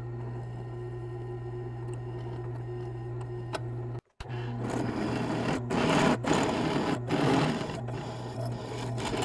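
Benchtop drill press motor running with a steady hum. After a brief break about four seconds in, a twist drill bit cutting into steel adds a harsher, uneven grinding noise over the hum; the bit is not the best quality.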